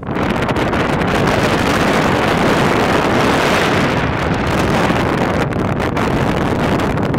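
Loud, steady wind noise on the microphone from a strong wind across the open bow of a container ship, setting in suddenly at the start.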